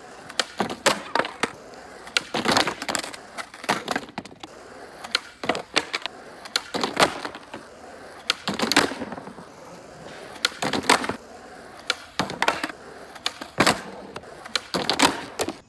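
Skateboard wheels rolling on asphalt, broken over and over by sharp wooden clacks of the tail popping and the board slapping back down, as ollies are tried over an upright traffic cone.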